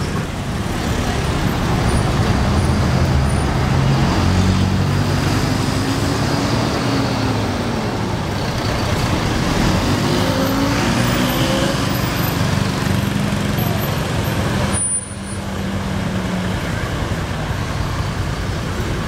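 Heavy diesel engines of large intercity buses in street traffic, their engine note rising and falling several times as they pull away and change gear. The sound breaks off sharply about fifteen seconds in and continues with another bus's engine running in slow traffic.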